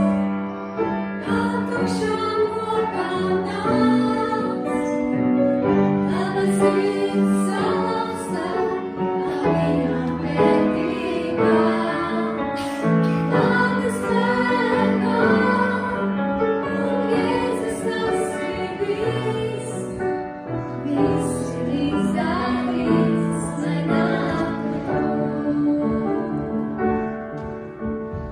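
Worship song sung by a young girl and women's voices together, with piano accompaniment.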